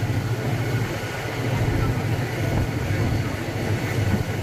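Passenger train running, heard from inside the carriage: a steady low rumble.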